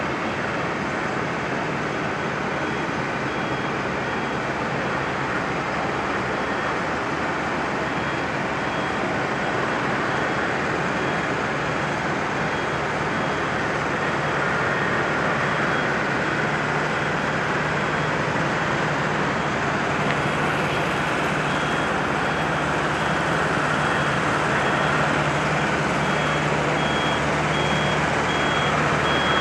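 Heavy-haul transport rig's diesel engine running steadily as it moves a heavy load on a multi-axle modular trailer, growing a little louder in the second half, with a high-pitched warning beeper sounding over it at a steady rhythm.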